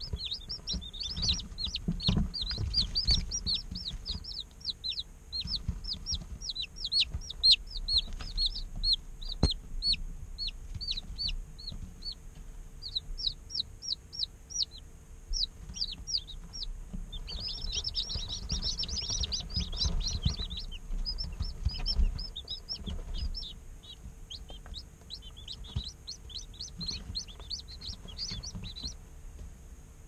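Several day-old chicks peeping almost without pause: quick, high, downward-slurred peeps, thickest in a busy burst a little past the middle. A faint steady hum and low rustling run underneath.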